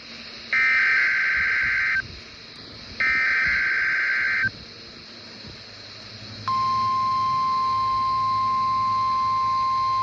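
NOAA Weather Radio Required Weekly Test: two buzzy SAME digital header bursts, each about a second and a half long and a second apart. About six and a half seconds in, the steady 1050 Hz weather radio warning alarm tone starts and holds.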